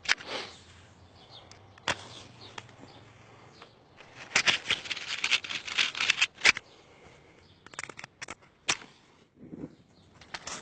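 Handling noise: scattered sharp clicks and knocks, with a dense stretch of rustling from about four seconds in that lasts some two and a half seconds, then a few more sharp clicks.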